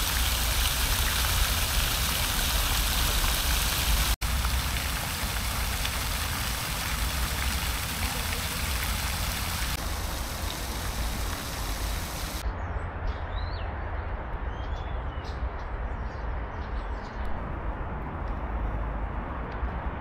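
Outdoor street ambience: a steady rush of wind on the microphone and distant traffic rumble, with a brief dropout about four seconds in and a few faint chirps in the second half.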